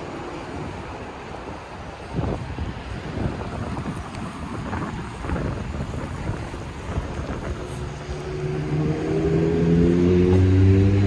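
Street traffic rumble with wind on the microphone; about two-thirds of the way in, a motor vehicle's engine comes up close and gets louder, its pitch rising steadily as it accelerates.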